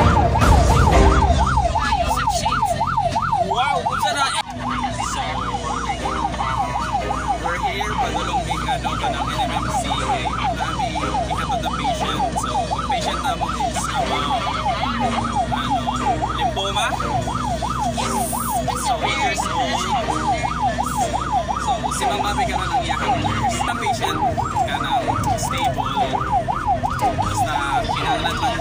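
Ambulance's electronic siren on a fast yelp, rising and falling about four times a second, heard from inside the ambulance cab over a steady engine and road rumble.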